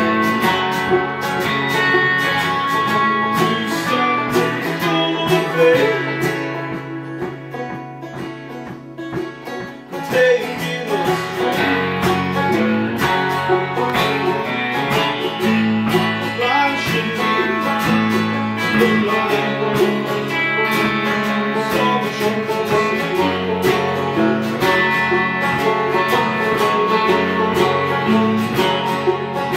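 Acoustic guitar, banjo and electric guitar playing a country-bluegrass tune together, with a man singing. The playing drops quieter for a few seconds about seven seconds in, then comes back up.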